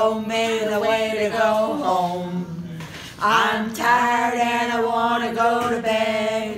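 Elderly woman singing unaccompanied: two long phrases of held notes, with a brief pause about three seconds in.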